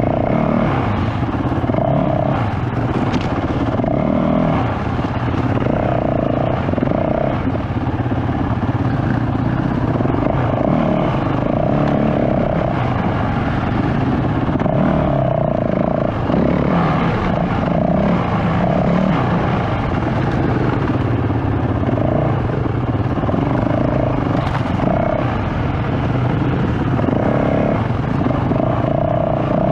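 Enduro dirt bike engine running steadily through the whole stretch, with small rises and falls in revs as the bike picks its way along a trail, heard close up from the handlebars.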